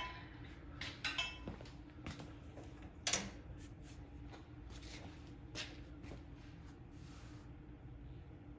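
A few scattered knocks and clacks of tools and metal parts being handled, over a faint steady hum.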